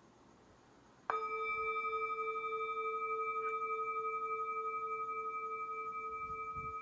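A crystal singing bowl is struck once about a second in and rings on with a steady, pure tone and a few high overtones, wavering gently in loudness.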